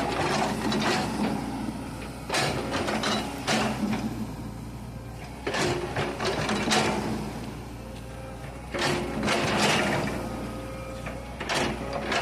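Excavator's diesel engine running steadily, with bursts of mechanical clatter from the machine every one to three seconds as it works.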